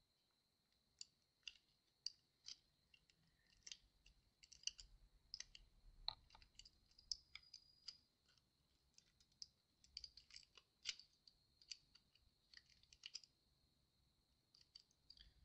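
Faint, irregular light clicks and taps of small hand tools and parts being handled, over a faint steady high-pitched tone.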